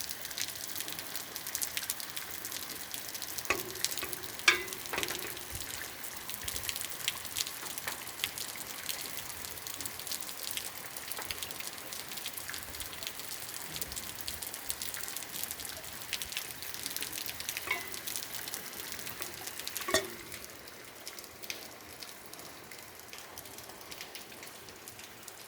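Heavy rain falling, a dense patter of many drops, with a few louder drips or knocks standing out. It eases noticeably about twenty seconds in.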